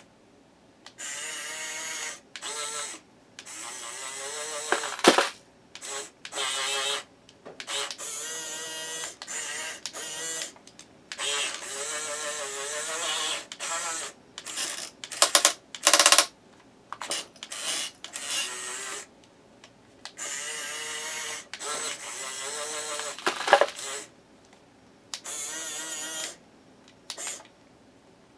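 The small electric gear motors of a HUINA 1510 1/16-scale RC excavator whine in repeated short stop-start bursts as the arm, bucket and tracks are worked through loose dirt. A few sharper, louder bursts come about halfway through.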